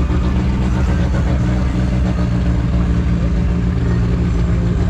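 Car engine idling steadily with an even, low-pitched note, from a black Chevrolet Chevette drag car waiting at the start line.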